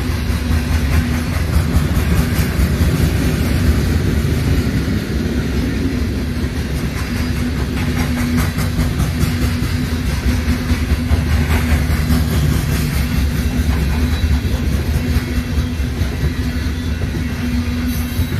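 Freight train of loaded coal hopper cars rolling past: a steady low rumble of steel wheels on rail, with a rapid clicking running through it.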